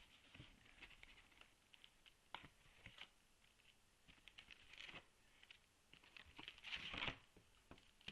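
Faint rustling and light tapping of foil-wrapped card packs and a cardboard box being handled as the packs are taken out, with a louder crinkle near the end.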